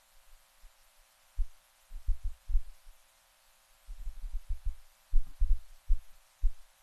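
Muffled, irregular low thumps in quick clusters with short pauses between them, with nothing clear above the lowest pitches; the rhythm is that of a voice speaking, heard only as an unintelligible rumble.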